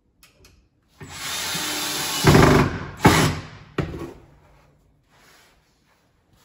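Ryobi cordless drill driving a screw through a drawer slide rail into a cabinet side: the motor runs steadily for about a second and a half and gets louder as the screw seats, followed by two short bursts.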